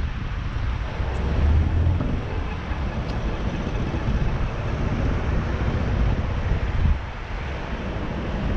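Wind buffeting the microphone while riding, over a low rumble of tyres and traffic.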